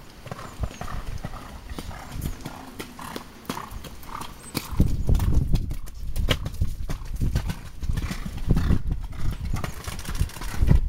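Horse cantering on a sand arena, its hoofbeats coming as a run of dull thuds that grow much louder about halfway through as the horse comes close.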